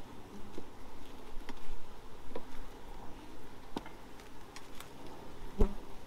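Honeybees buzzing steadily over an open hive box, with a few sharp clicks and knocks as a metal hive tool prises at the wooden frames, the loudest near the end.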